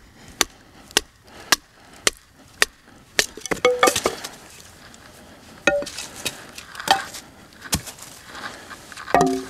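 A small folding hand saw splitting a stick of wood against a log. First come sharp wooden knocks, about two a second. Around three to four seconds in there is a quick cluster of cracking and splintering as the wood splits apart, and a few more scattered knocks and cracks follow.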